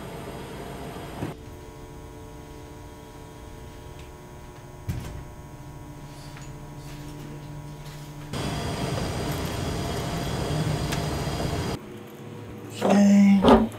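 A heavy metal exit door knocks shut, once about a second in and again near the middle, over a steady electrical hum in a hallway. Near the end comes a short, loud pitched creak, the loudest sound.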